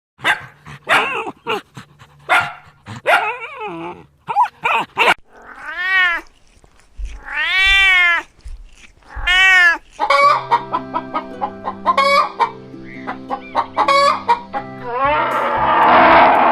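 Farm animal calls edited together: a run of short calls, then three long calls that rise and fall, each about a second. From about ten seconds in, music with a steady beat, and near the end a loud noisy rush.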